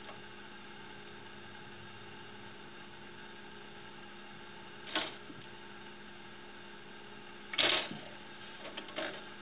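A cat batting at a DVD player on a metal shelf: a short knock about halfway through, a louder clatter near the end, then a smaller knock, over a steady low hum.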